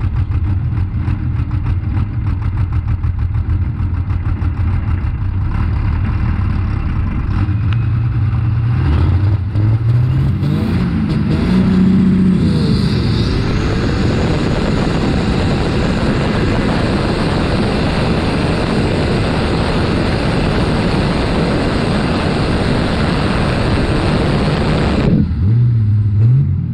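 Modified pulling tractor's engine, heard onboard. It runs steadily at low revs, then revs up about nine seconds in. It is held at full power through the pull for about thirteen seconds, then cuts back sharply near the end, followed by a short rev blip.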